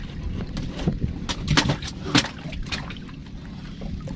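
Choppy water slapping against the hull of a small wooden boat: several short sharp slaps, the strongest about two seconds in, over a low steady noise.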